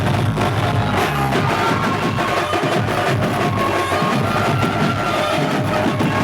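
Dhumal band music: rapid, heavy drumming with a held melody line above it.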